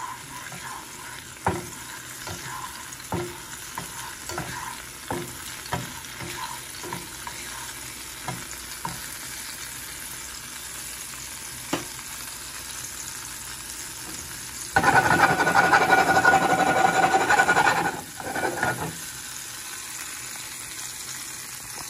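Minced garlic sizzling in olive oil in a nonstick frying pan, with a spatula scraping and tapping the pan about once a second for the first nine seconds or so. About two-thirds of the way through, a much louder rushing noise runs for about three seconds and cuts off.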